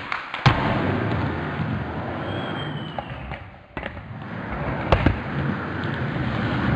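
Skateboard wheels rolling on a smooth concrete floor, with sharp clacks of a board landing: the loudest about half a second in, two more near four and five seconds.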